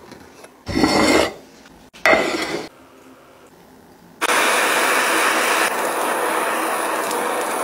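Two brief noisy sounds about a second apart, then a handheld kitchen blowtorch hissing steadily from about four seconds in as it caramelises a sugar topping.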